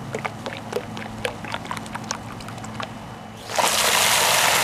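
Car wash soap gel poured from a bottle into a bucket of suds, making small irregular plips and splashes. About three and a half seconds in, a garden hose stream starts hissing loudly into the bucket.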